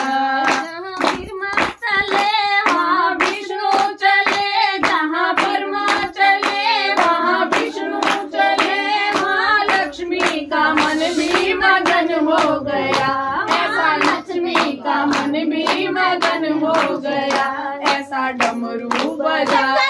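Voices singing a Hindi devotional bhajan to steady hand-clapping, about two claps a second.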